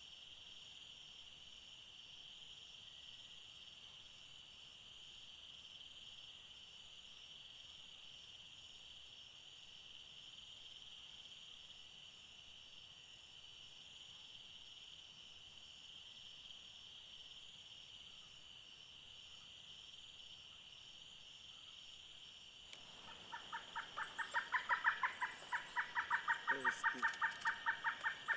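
Steady high chorus of insects. Near the end a large woodpecker breaks in with a loud, rapid series of calls, about six notes a second, that runs to the end.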